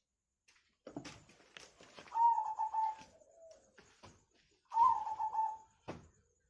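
Doves cooing: two warbling coo phrases about two and a half seconds apart, with a couple of sharp knocks, one before the first phrase and one right after the second.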